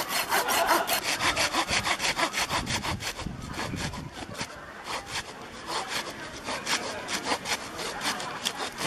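Hand saw cutting through wood in quick, even back-and-forth strokes, about five a second, a little softer in the second half.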